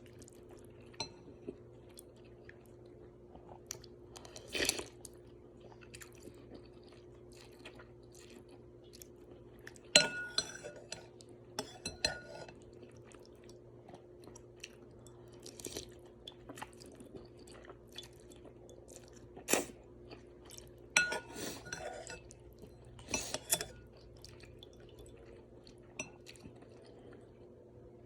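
Close-up eating of pork ramen noodles: scattered chewing and mouth sounds, with a few sharp clinks of utensils against a bowl, over a steady low hum.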